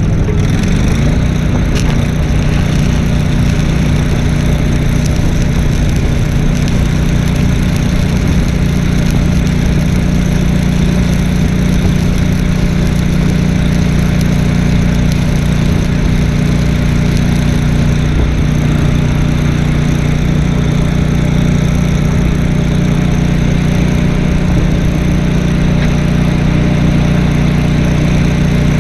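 An engine runs steadily, having risen in pitch over about the first second. It is most likely the engine of an engine-driven welding machine powering the arc gouging and stick welding on a backhoe boom.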